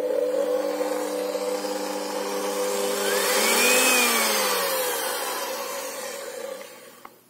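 Alesya-300 kitchen mixer's electric motor running, now that its lid limit switch is closed. Its whine rises in pitch to a peak about four seconds in, then falls as the motor winds down and stops near the end.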